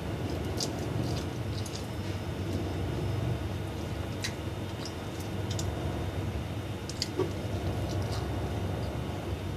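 A person eating fried noodles with chopsticks: slurping and chewing, with scattered light clicks of chopsticks on the plate, over a steady low background hum.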